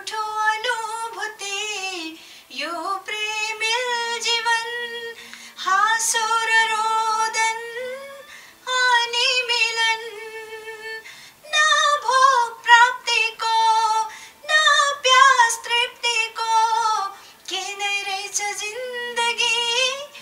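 Woman singing the title song of a Nepali TV love series solo, in phrases of a few seconds with long held, wavering notes and short breaths between them. A faint low held note sounds beneath the voice in places.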